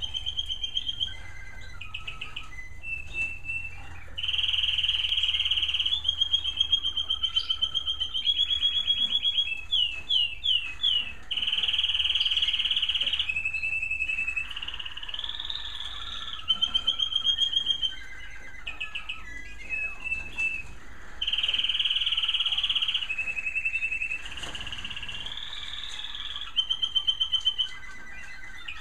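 American Singer canaries singing a long, unbroken song of rapid rolling trills, held notes and swooping whistled phrases, switching from one phrase to the next every second or two.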